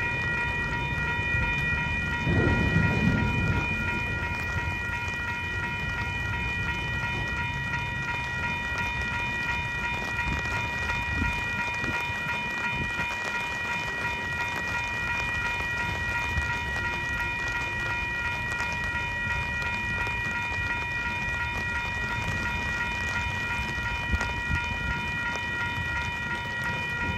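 Railroad crossing warning bell ringing steadily over the low rumble of slow-rolling autorack freight cars, which come to a stop at the crossing.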